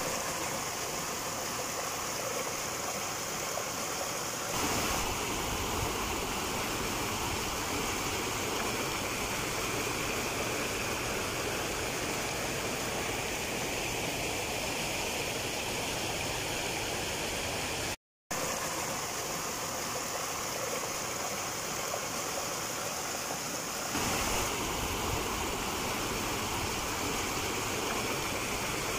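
A river flowing steadily over rocks: an even, continuous water noise, broken once by a split-second dropout about two-thirds of the way through.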